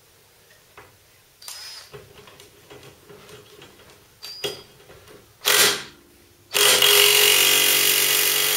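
Cordless impact wrench on the radius rod mounting bolts: a few short trigger pulls, then a long steady run of hammering over the last two seconds.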